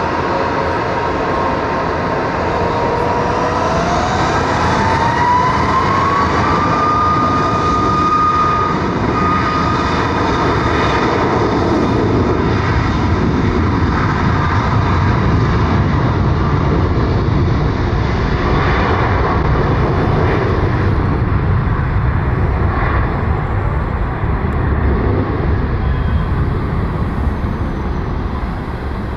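Boeing 737 MAX 8's CFM LEAP-1B jet engines spooling up to takeoff power, a whine rising in pitch over a few seconds and then holding. Steady loud jet engine noise with deep rumble follows as the aircraft accelerates down the runway.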